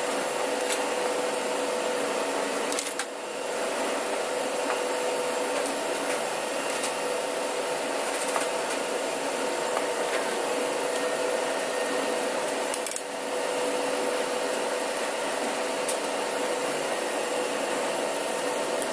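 Steady machinery drone with a constant hum, the background noise of a machine workshop, with a few faint clicks of metal fuel-pump parts being handled.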